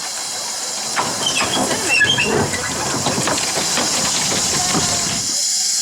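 Steam locomotive hissing loudly as it vents steam, with clanking and rumble of the train moving from about a second in until near the end.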